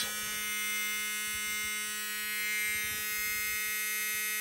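Dashboard warning buzzer of a 1977 Chrysler Newport giving a steady, even buzz with the ignition switched on and the engine not yet cranked.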